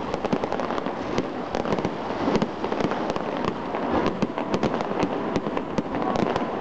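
Fireworks display going off in rapid succession: a dense, continuous crackle of many sharp bangs and pops with no pause.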